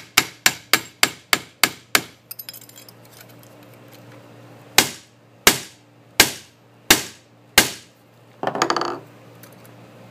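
Ball peen hammer peening the middle of a brass hinge leaf on a bench vise's anvil to give it a hammered texture. There is a quick run of about seven sharp strikes, a pause, then five slower strikes, and a brief clatter near the end.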